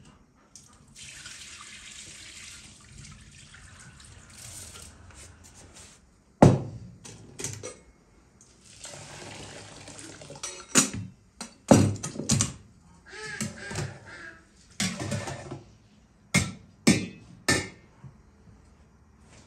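Water poured from an enamel basin and then from an enamel kettle over rice in an enamel basin, two pours of several seconds each. Between and after the pours come a loud knock and a run of clanks and knocks of enamelware being handled and set down.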